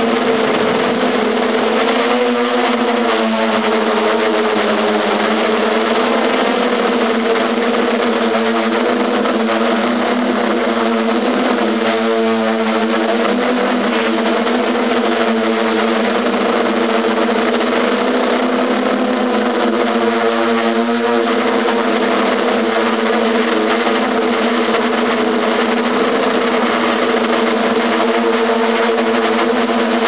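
A hexcopter's six electric motors and propellers drone steadily, heard close up from the craft itself, the pitch wavering up and down slightly as the motors adjust their speed in flight.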